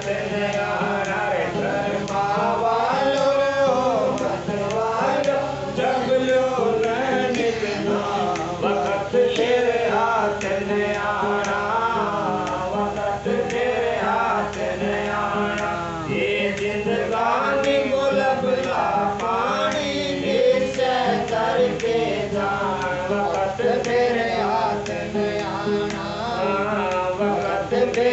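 Men's voices singing a Radha Soami shabd, a devotional hymn in Hindi, over steady held accompaniment tones.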